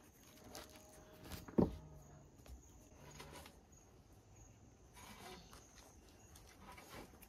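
Faint, steady high-pitched trill of crickets, with one sharp knock about a second and a half in.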